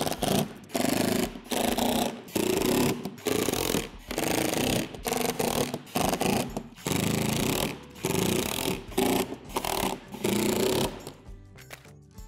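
Cordless drill-driver running in about a dozen short bursts of a second or less, with brief pauses between, as it drives screws one after another through a plastic window pane into a plastic shed door; the bursts stop about eleven seconds in.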